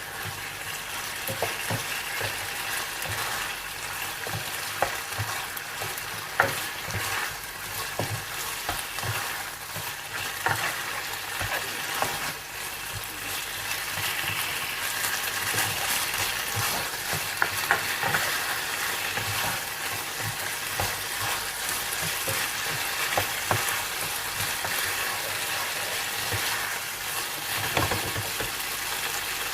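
Chicken and boiled pasta sizzling in a hot pan while being stirred, the spoon scraping and knocking against the pan in frequent short clicks. The flame has just been turned off, so the sizzle is from the pan's remaining heat.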